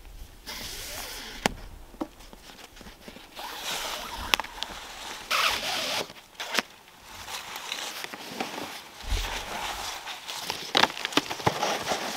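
Gear being packed by hand: stiff canvas rustling and a bungee cargo net being stretched over it, with a few sharp clicks from the cord hooks and fittings.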